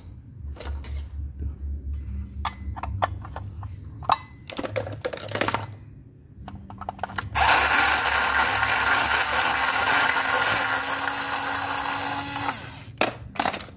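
A handheld electric screwdriver runs for about five seconds, undoing the last screw that still holds a car amplifier's circuit board, with a steady whine that steps up slightly midway. Before it come a few light clicks of tools and metal parts being handled.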